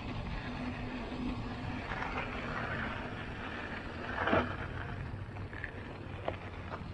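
Giant Trance X 29 mountain bike's tyres rolling over a gravel lot, a steady crunching rumble mixed with wind on the microphone, with a short louder burst about four seconds in and a couple of faint clicks near the end.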